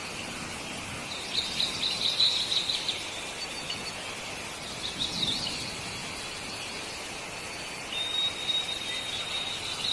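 Birds chirping in short runs, about a second in and again around five seconds, with a thin held whistle-like note near the end, all over a steady high hiss.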